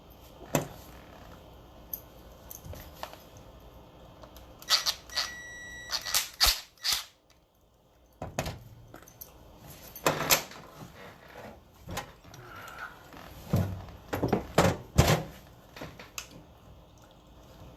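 Scattered clicks, taps and knocks of tools and small connector parts being handled on a workbench. They come in clusters about five seconds in, around ten seconds, and around fourteen to fifteen seconds, with a brief high ring among the first cluster.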